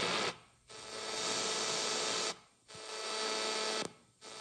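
Shortwave static and hiss from an Eton Elite Satellit receiver's speaker, cutting out to near silence three times for a fraction of a second as the tuning knob is turned: the radio muting on each tuning step.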